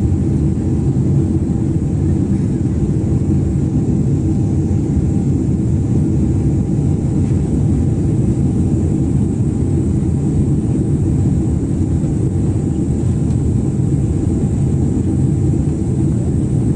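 Boeing 777 cabin noise in the climb after takeoff: the steady, heavy low roar of the twin jet engines and the air rushing past the fuselage, with a faint constant whine above it.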